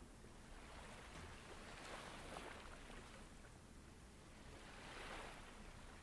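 Faint ocean surf, waves washing in and drawing back, swelling twice: about a second in and again around five seconds in.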